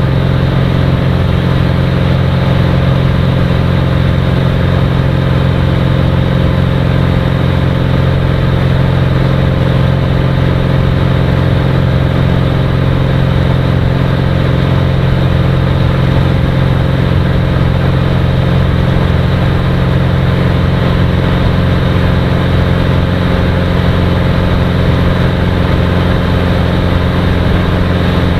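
Cirrus SR20's single piston engine and propeller running at a steady power setting, a constant loud drone heard from inside the cockpit.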